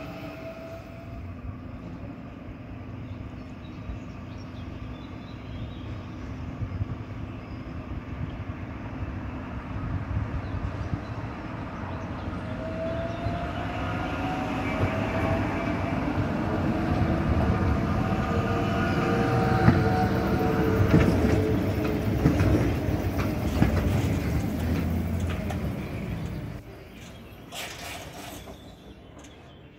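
Translohr rubber-tyred tram approaching and drawing to a stop. A low rumble of tyres and running gear builds up along with a gliding whine from the electric drive, then falls away suddenly near the end as the tram halts, followed by a few sharp clicks.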